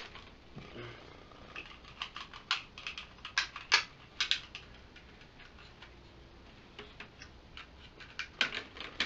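Hard plastic toy parts clicking and snapping together as the arm pieces of a Lost Galaxy Megazord are fitted onto its body: bunches of quick sharp clicks, a quieter spell in the middle, and another bunch near the end.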